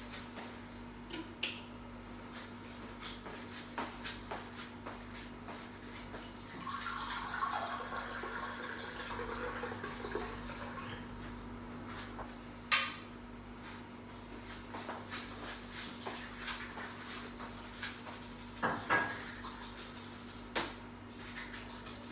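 Scattered light clinks and knocks, like dishes and utensils being handled, over a steady low electrical hum. There is a louder knock about halfway through and a double knock later on.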